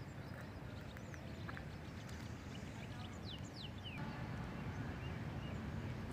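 Open-air ambience with a steady low wind rumble on the microphone and a few short, falling bird chirps, most of them a little past the middle.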